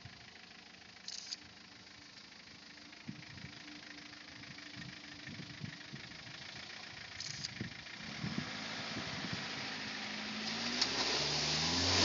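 Mitsubishi Pajero 2.5 four-cylinder turbodiesel engine running as the 4x4 rolls down a sandy slope, growing louder over the last few seconds. Near the end it revs up as the vehicle drives into a pond, with water splashing and rushing around it.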